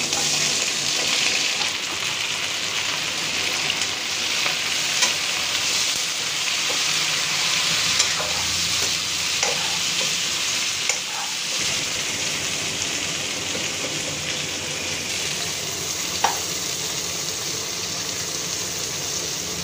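Chopped jackfruit frying in hot oil in a metal kadai: a steady sizzle. A spoon stirs the pieces, with a few sharp clicks of the spoon against the pan.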